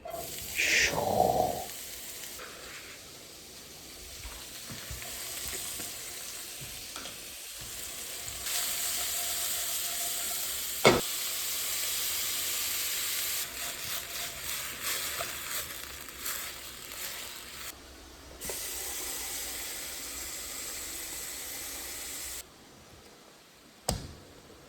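Mushrooms going into a preheated wok of hot olive oil: a loud burst of sizzling as they land, then steady sizzling and frying as they are stirred, with one sharp tap about eleven seconds in. The sizzling falls away a couple of seconds before the end.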